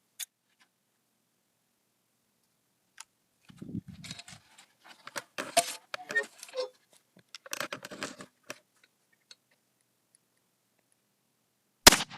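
Scattered clicks and rustling of the gun being handled, then near the end a single sharp, loud shot from a 20-gauge break-action shotgun converted with a 209-primer muzzleloader adapter, firing a black-powder load of birdshot.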